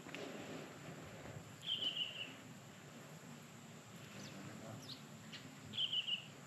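A small bird calling twice, a short falling trill each time, about four seconds apart, over faint outdoor background sound.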